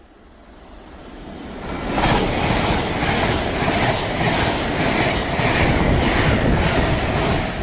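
A train passing at speed: it grows louder over the first two seconds, then a loud, steady rush with a pulse about twice a second.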